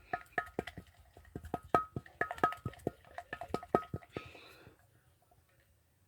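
A utensil knocking and clinking against a bowl while mixing slime, a fast irregular run of taps with a short ringing note after each. The tapping stops after about four seconds, followed by a brief scraping hiss.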